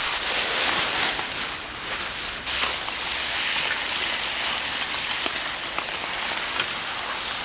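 Pork offal sizzling on a large iron griddle: a steady loud hiss with scattered sharp pops and crackles of spitting fat.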